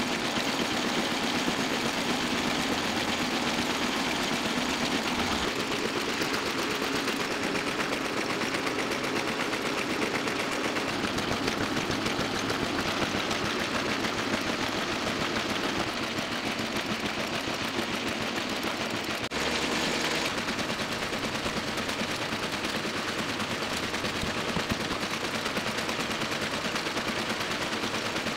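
Toko 810 small offset printing press running at speed, a rapid, steady mechanical clatter as it feeds and prints sheet after sheet.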